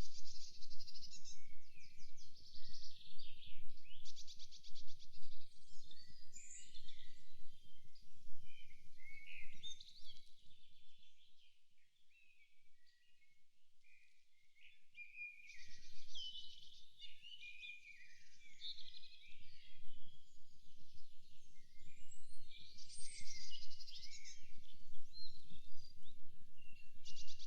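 Several songbirds singing and chirping in a forest, with rapid trills among the calls, over a low background rumble that drops away for a few seconds midway.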